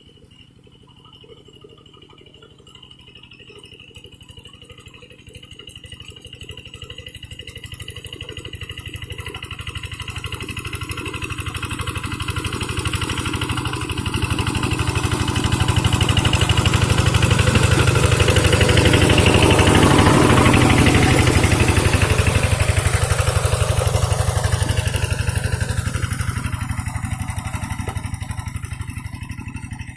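Single-cylinder Kubota RD diesel engine of a Quick G1000 two-wheel hand tractor running steadily while pulling a harrow. It grows louder as it approaches, is loudest about two-thirds of the way through, then fades as it moves away.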